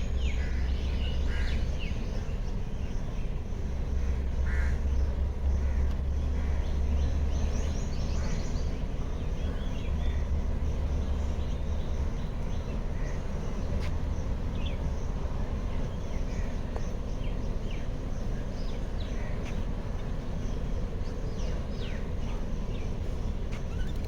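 Many birds calling at once, a scatter of short chirps and calls, over a steady low rumble that is heavier during the first half.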